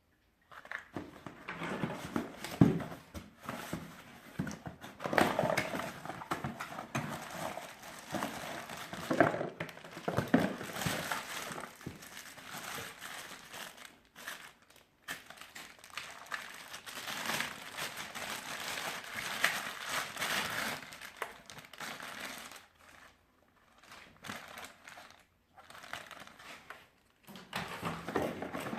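Packaging material crinkling and rustling as it is handled and pulled off during an unboxing, in irregular bursts with a few short pauses.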